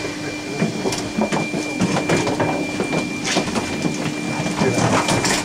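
A stopped electric train, heard from inside: a steady low hum with a thin high whine from its equipment, and irregular clicks and knocks throughout.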